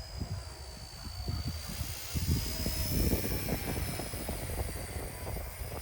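Small electric RC Era C032 UH-1 Huey scale model helicopter flying, its motor and rotor giving a steady high whine that wavers slightly in pitch. Gusty wind rumbles on the microphone, strongest from about two seconds in.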